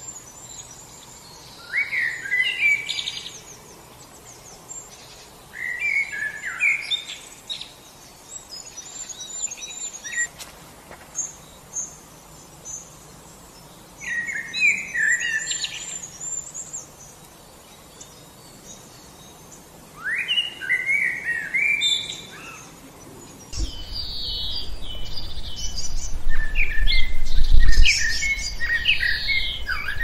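Songbirds singing: short phrases of quick chirping notes every few seconds, with thin high notes in between. About three-quarters of the way through, the song grows denser and a low rumble comes in underneath.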